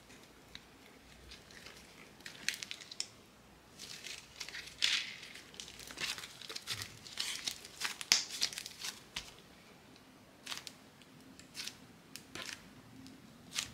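Pink slime mixed with chocolate sprinkles being squished, kneaded and pressed by hand, giving faint, irregular crackly sounds as it is pulled and squeezed.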